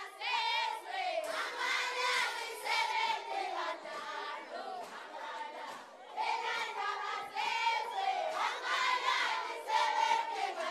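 Large group of Swazi maidens singing together in chorus at the Umhlanga reed dance, many high wavering voices over crowd noise, easing off a little midway and swelling again about six seconds in.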